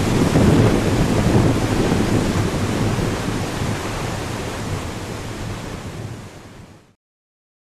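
Waterfall, water falling and rushing in a steady heavy wash, fading out over the last few seconds and stopping about seven seconds in.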